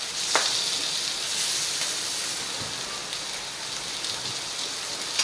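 Bone-in pork chop sizzling in a hot pan as it sears at high heat to brown the surface, a steady high hiss. A single light click about half a second in.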